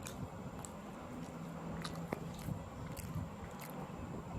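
A person chewing food close to the microphone, with a series of soft, irregular mouth clicks and smacks.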